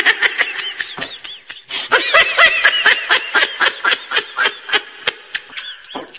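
"Troll laughing" meme sound effect: high-pitched, rapid laughter, a fast string of short syllables that each rise and fall in pitch, breaking off briefly near the end.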